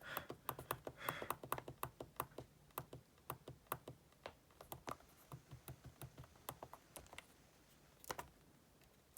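Faint typing on a computer keyboard: quick, irregular key clicks that thin out after about five seconds.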